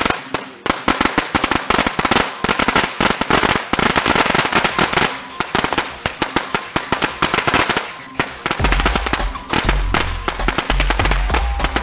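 Thousands of firecrackers going off in a rapid, unbroken crackle of sharp pops, thinning briefly twice. About two-thirds of the way through, music with a heavy bass beat comes in under the crackling.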